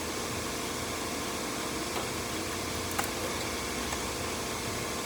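A steady fan-like hum, with two light clicks about two and three seconds in from handling the engine's ignition coils.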